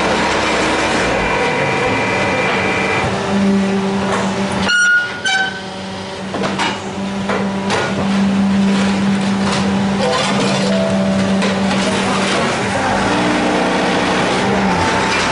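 Machinery running with a steady hum, broken by an abrupt change about five seconds in, then running steadily again.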